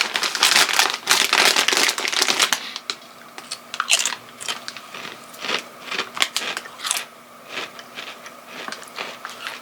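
Crinkling of a bag of nacho cheese protein chips for about the first two and a half seconds, then a string of separate crunches as the chips are bitten and chewed.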